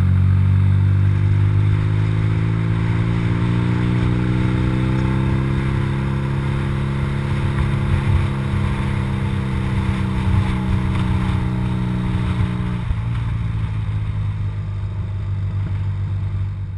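BMW R80RT's air-cooled flat-twin boxer engine running at a steady road speed. Its note rises slightly over the first few seconds and eases back about three-quarters of the way through, with wind rushing over the helmet camera's microphone throughout.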